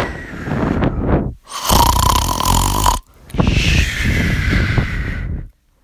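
A long, loud, rasping burp in three drawn-out pushes, the second one longer than a second and the last over two seconds.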